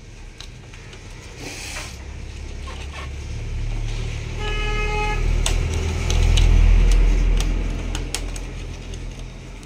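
A motor vehicle passing by: a low engine rumble swells over several seconds and fades away, with one short horn toot of under a second a little before the loudest point. A few light clicks sound over it.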